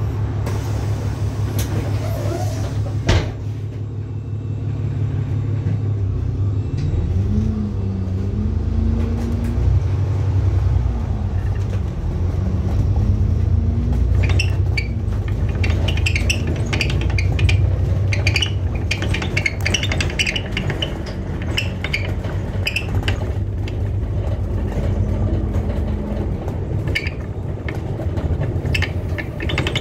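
ADL Enviro400 MMC double-decker bus heard from inside: the engine idles at a stop, there is a sharp knock about three seconds in, then the bus pulls away. From there the engine runs under load with a whine that rises and falls as it gathers speed.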